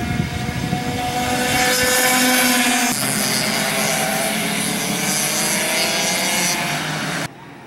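Two-stroke 60cc IAME Mini Swift kart engines running hard as two karts race through a corner, their pitch gliding slightly up and down. The sound changes abruptly about three seconds in and stops suddenly near the end.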